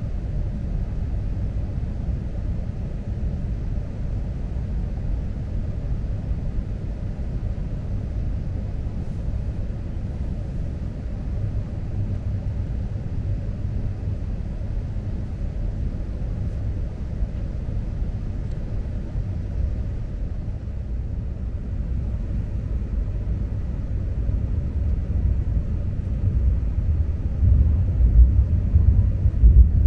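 Cabin noise of an E6 series Komachi Shinkansen train running: a steady low rumble that grows louder over the last few seconds.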